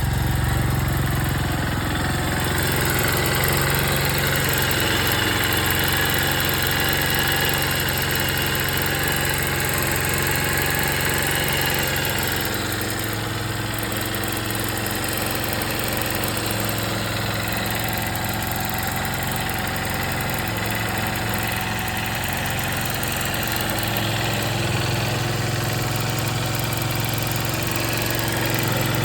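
Honda XR150L's single-cylinder four-stroke engine idling steadily, with a rattle or ticking that the owner is asking about.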